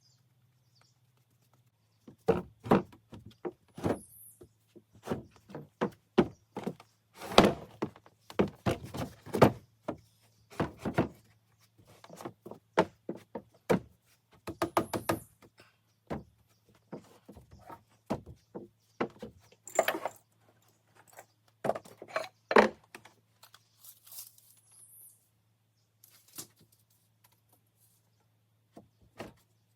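Irregular wooden knocks and thunks, some in quick clusters: pressure-treated lumber being handled and set in place during carpentry.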